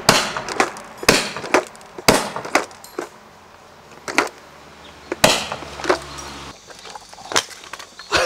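ICS MGL airsoft revolving 40 mm grenade launcher firing green-gas shells. It gives sharp pops: three about a second apart, then another a few seconds later, each followed by a lighter click.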